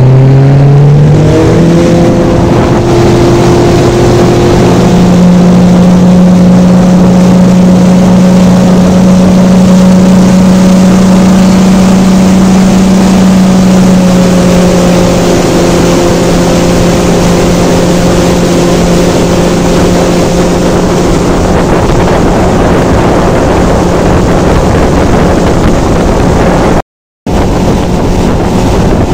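A small motorboat's engine revs up as the boat accelerates over the first couple of seconds, then runs steadily at speed. Wind on the microphone and water rushing past the hull run under it. The sound cuts out for a split second near the end.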